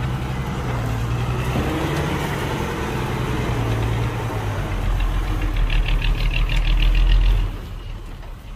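Heavy diesel engine running steadily. From about five seconds in it grows louder, with a fast rhythmic rattle over it, then drops off sharply near the end.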